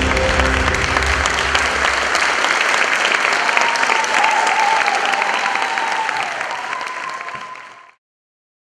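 Audience applauding as the last notes of the dance music die away. A faint, high wavering tone rises over the clapping midway. The applause fades and cuts off to silence near the end.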